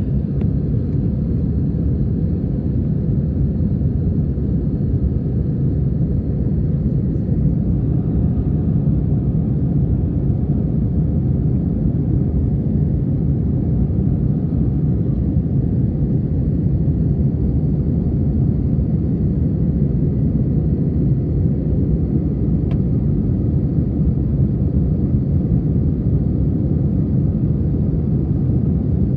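Airliner cabin noise in flight: the steady, low-pitched noise of the jet engines and the air rushing past the fuselage, heard from inside the passenger cabin.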